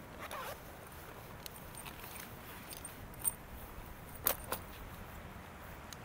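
A few light clicks and clinks of small hard objects being handled, the three sharpest about three and four seconds in, over a low steady rumble.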